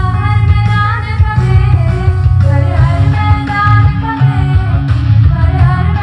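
Song playing: a singing voice over guitar and a heavy bass beat.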